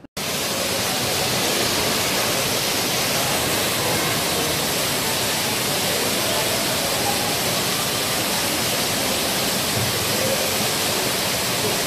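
Steady, loud rush of falling water, cutting in abruptly at the start and holding level throughout, with faint voices underneath.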